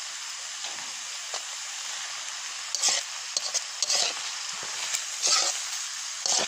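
Wild mushrooms sizzling as they stir-fry in a metal wok, with a steady frying hiss. From about three seconds in, a metal spatula scrapes and stirs the pan in several louder strokes.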